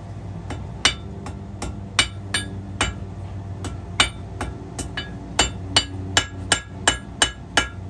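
Blacksmith's hammer striking a hot horseshoe being forged into a small knife on the anvil: an even run of about twenty ringing blows, roughly two and a half a second, the blows coming slightly faster near the end.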